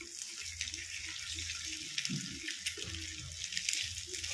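Batter-coated boiled eggs deep-frying in hot oil: a steady sizzle with many small scattered crackles and pops.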